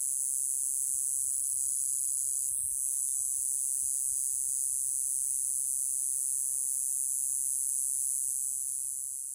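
Iwasaki's grass cicada (Mogannia minuta) singing: a continuous, steady, high-pitched buzz that begins to fade near the end.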